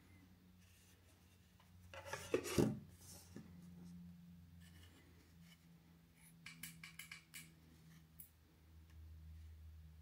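Plastic housing of a MOES Zigbee smart wall switch being handled: a brief scraping rub about two seconds in, then a quick run of light clicks around seven seconds.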